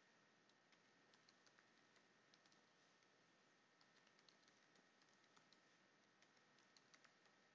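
Faint typing on a computer keyboard: irregular key clicks in short runs over a low steady hiss.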